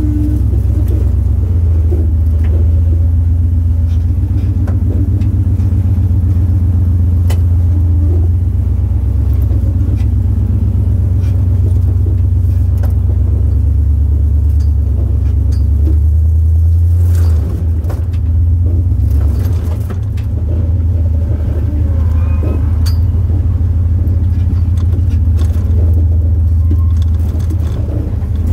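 Off-road vehicle's engine running at low speed while crawling over rock, a steady low rumble heard from inside the cab, with scattered knocks and rattles.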